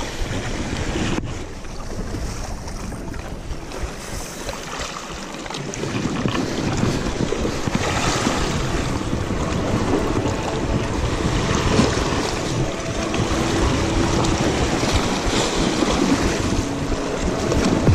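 Wind buffeting the microphone over the wash of sea waves, a steady rushing noise that swells and eases.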